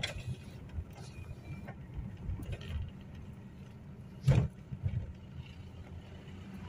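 Inside a car's cabin: low, steady engine and road rumble as the car moves slowly, with a single sharp knock about four seconds in.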